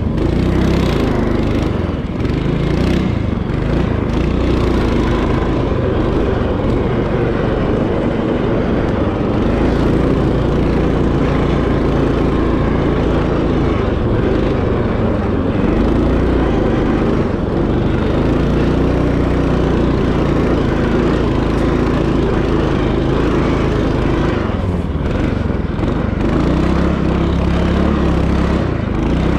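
Small petrol engine of a motorized snowboard running continuously under way, its pitch shifting now and then with the throttle.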